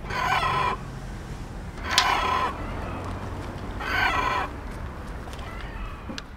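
Bantam roosters crowing: three clear crows about two seconds apart and a fainter one near the end, with a sharp click as the second crow begins.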